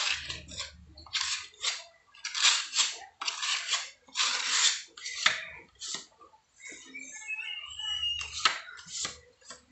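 Steel putty knife scraping wall putty across a wall in repeated short strokes. Near the end the blade is scraped against a second knife to clean it, with a brief high squeak.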